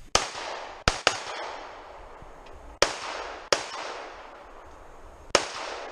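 Six pistol shots at uneven spacing, two fired in quick succession about a second in, each followed by a trailing echo.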